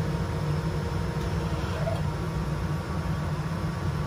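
Rikon 10-326 14-inch band saw running with the shop's air extraction on, a steady, even hum.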